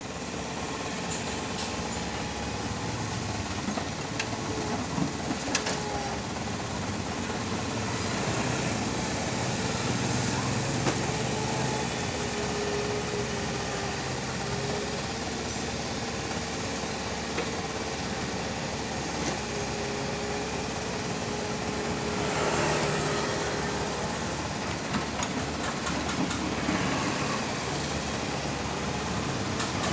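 Kubota mini excavator's diesel engine running steadily as it digs and swings loads of soil, with a tone that rises and falls as the arm works. Scattered knocks and clatters, and a louder rushing noise about 22 seconds in.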